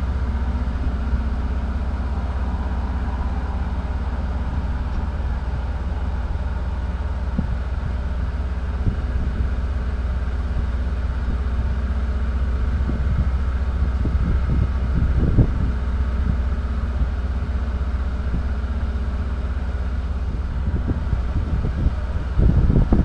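Vehicle engine idling steadily, heard from inside the stopped vehicle's cab as a low rumble, with a few faint knocks around the middle.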